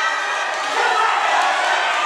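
Boxing crowd shouting and cheering during the fight, many voices overlapping at a steady level.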